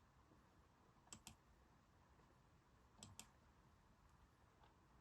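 Faint computer mouse clicks, two quick pairs about two seconds apart, over near-silent room tone.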